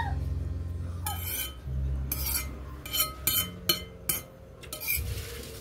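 Metal spoon clinking and scraping against a ceramic bowl while scooping noodles and rice: a run of short, sharp clinks, most of them between about two and four seconds in.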